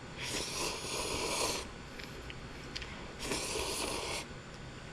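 Two long, breathy rushes of air, each about a second long and about three seconds apart: a person breathing heavily in and out.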